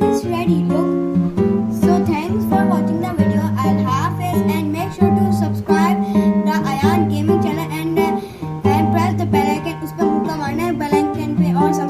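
Background music: acoustic guitar strumming and picking over a steady bass line.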